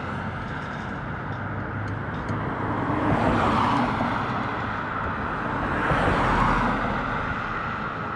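Steady road and wind noise while riding along a road. Two passing vehicles swell and fade, one about three seconds in and one about six seconds in.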